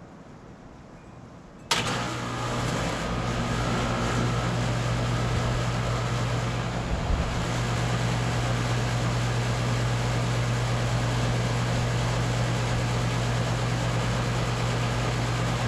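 2012 Bryant Legacy Line 2.5-ton air conditioner condensing unit kicking on suddenly about two seconds in, then running steadily. It is a very loud, rough start: the Copeland scroll compressor gives a strong steady buzzing hum under the rush of the condenser fan.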